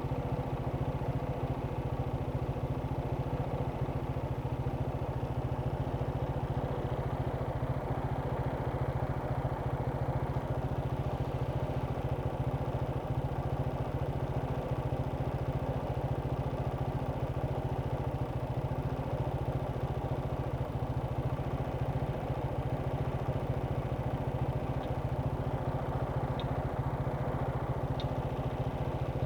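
An engine idling steadily close by, with an even low pulsing hum that does not change. A few faint, brief high chirps come near the end.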